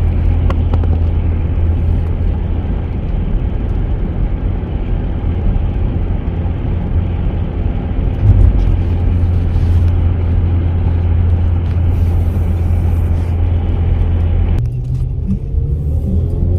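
A car driving, heard from inside: a steady low engine and road drone with tyre and wind hiss. About fifteen seconds in the hiss drops away suddenly and only the low drone is left.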